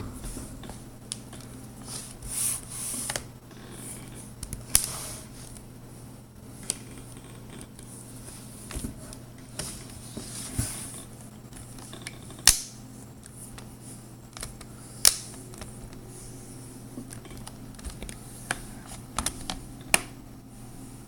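Plastic screen bezel of a Toshiba Z835 laptop being pressed back on around the display, its clips snapping into place with sharp clicks every few seconds, amid light handling rustle.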